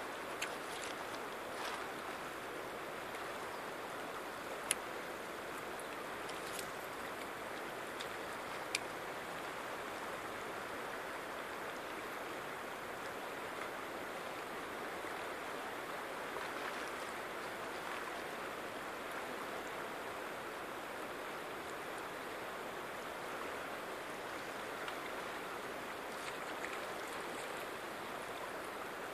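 River water running steadily past a gravel bank, an even wash of flowing-water noise. A few sharp clicks stand out, the loudest about five and nine seconds in.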